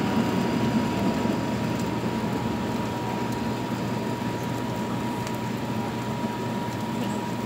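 Food frying in two pans on the stove, a steady hum and hiss with a faint constant whine.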